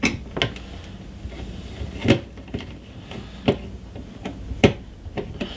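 Light clicks and taps of a screwdriver and small metal parts handled against a PC motherboard, about half a dozen sharp, irregular ticks, as the screwdriver is set to the M.2 SSD slot screw.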